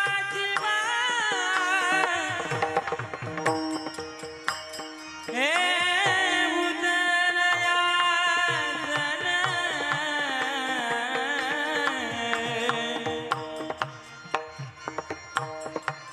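Male voice singing a Marathi kirtan tune in long, ornamented phrases, accompanied by steady drum strokes and small hand cymbals. About five seconds in a new phrase starts with an upward slide and is held for several seconds; near the end the singing thins out and the drum and cymbals carry on.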